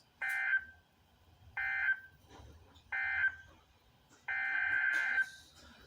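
Emergency Alert System digital data tones: three short warbling bursts a little over a second apart, the end-of-message code that closes a tornado warning. About four seconds in, a longer burst starts the header of the next alert.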